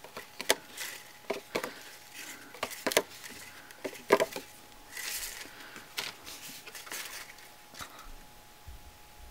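Card stock panels being handled and pressed together on a tabletop while a handmade card is assembled with glue dots: scattered light taps and clicks, with a short stretch of paper sliding about five seconds in.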